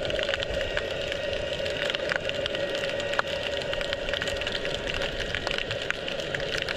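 Underwater noise picked up by a submerged camera: a steady hum with a dense crackle of small sharp clicks.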